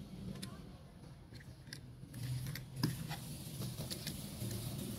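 Diecast toy cars and trucks clicking and clattering against each other and a plastic tub as a hand rummages among them: a few light clicks at first, then denser clattering from about two seconds in, with one sharper clack, over a low steady hum.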